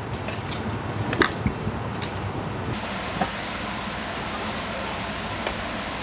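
Mountain stream rushing: a steady wash of water noise, with a few faint clicks about a second in.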